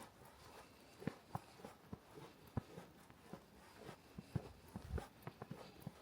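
Faint, irregular crunching and ticking of footsteps walking through fresh snow, with a few soft low thumps from wind on the microphone.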